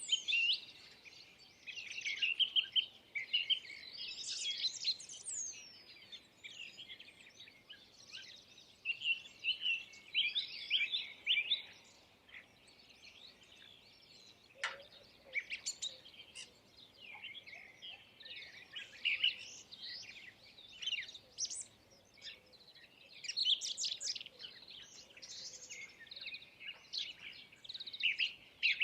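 Several small birds chirping and singing, with short overlapping high calls and trills that come in clusters throughout. One sharp click sounds about halfway through.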